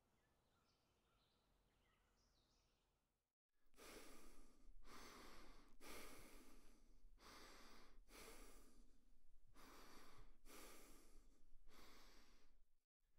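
Near silence with a few faint chirps, then, after a sudden cut, a person breathing in a steady rhythm: about eight noisy breaths, a little over a second apart.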